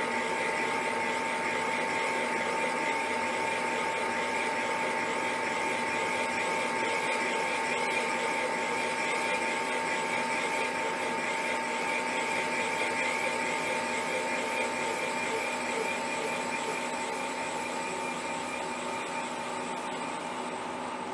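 Milling machine spindle turning a boring head that is boring out a large hole, running steadily with a constant high whine over a machine hum.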